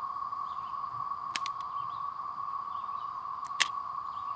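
Steady outdoor ambience with a constant high drone, broken by two pairs of sharp clicks, the last click the loudest.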